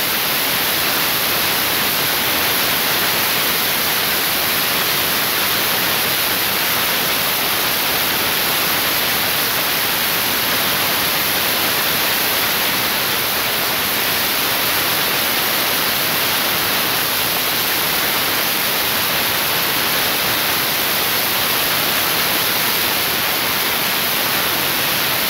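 A steady, even static-like hiss that is strongest in the high end and never changes, then cuts off suddenly.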